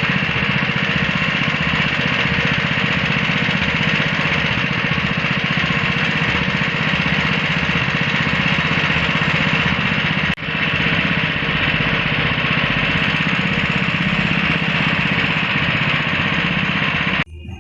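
Pepper-hulling machine running steadily with a mechanical hum. There is a momentary break about ten seconds in, and the sound cuts off suddenly just before the end.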